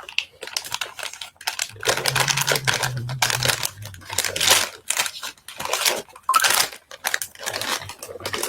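Packaging being torn open and crinkled by hand in irregular bursts, as the cups are unboxed.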